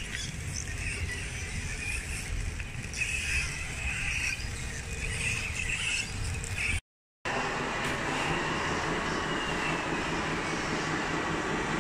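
A scale RC Caterpillar D6T bulldozer crawling and pushing dirt, its electric drive and tracks making an uneven whine. After a sudden break about halfway through, a steadier mechanical whine and hum with a faint falling tone comes from a scale RC hook-lift truck working its hook arm and flatbed.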